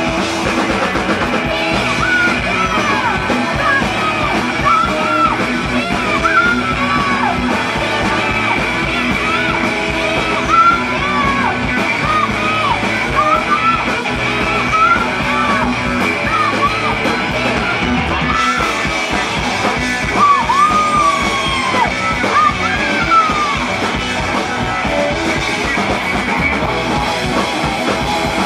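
Live punk rock band playing loud, with electric guitar under a singer yelling and singing into a microphone; the vocal drops out for the last few seconds while the band plays on.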